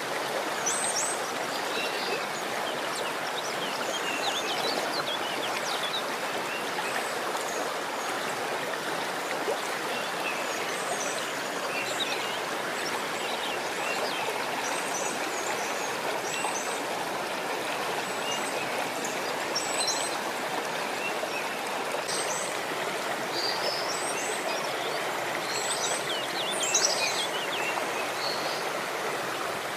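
Steady rush of running water, like a stream, with short high chirps scattered over it throughout.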